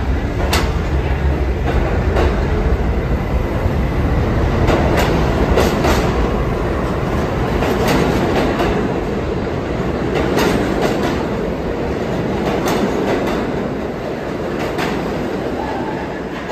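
R68 subway train pulling out and running past close by: a steady rumble with wheels clacking over rail joints every second or two, fading near the end as the last car leaves.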